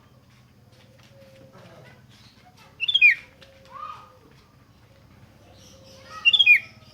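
Sooty-headed bulbul calling: two loud, short bursts of quick falling notes about three seconds apart, with a lower single note just after the first burst.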